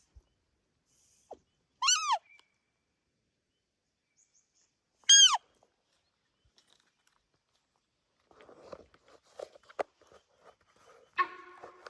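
Two loud alarm honks from a sambar deer, about 2 and 5 seconds in, each a short call falling in pitch. Rustling and crunching, like footsteps in dry leaf litter, follow in the last few seconds.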